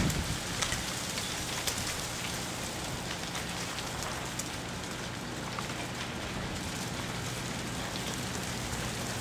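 Ice shedding from ice-glazed tree branches as the glaze thaws, falling like rain: a steady dense patter of ice pieces hitting snow, roofs and branches, with scattered sharp ticks and a louder clack at the very start.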